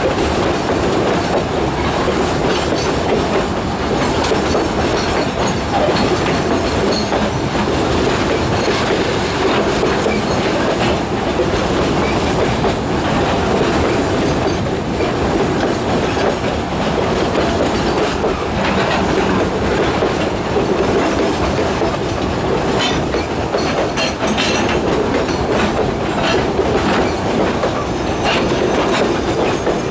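Freight train's gondola wagons rolling past: a steady rumble of steel wheels on rail with clickety-clack over the rail joints, the clicks more frequent in the second half.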